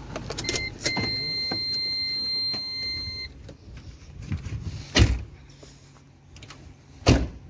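Car door opening: a short beep, then the car's steady high-pitched warning chime for about two and a half seconds. A car door slams shut about five seconds in, and another heavy thump comes just before the end.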